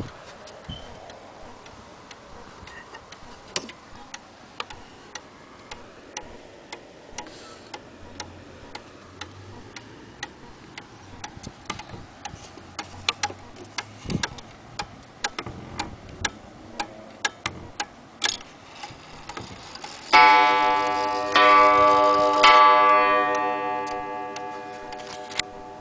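Junghans wall clock ticking, then its strike sounding three ringing blows about a second apart, each slowly dying away.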